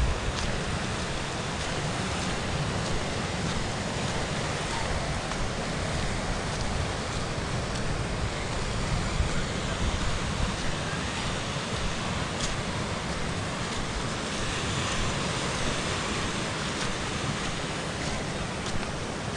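Sea surf washing and breaking on a rocky shore, with wind rumbling on the microphone.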